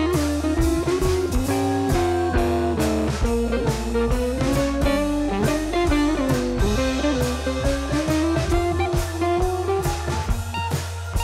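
Instrumental background music with a steady beat and a melody line that slides up and down in pitch.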